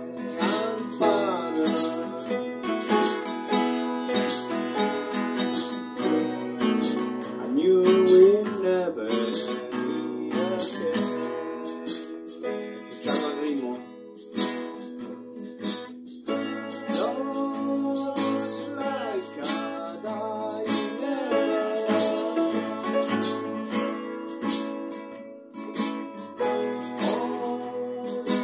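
A man singing a slow country ballad into a microphone over a strummed acoustic guitar backing with a steady light beat.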